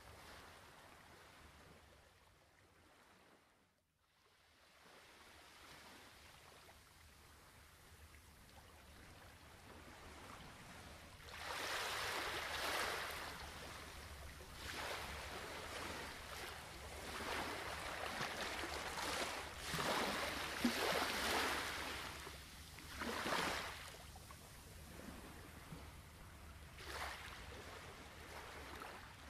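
Soft flowing water that fades almost to nothing about four seconds in, then louder rushing surges of water from about eleven seconds on, swelling and falling back every few seconds like waves washing in. A faint steady low hum lies underneath.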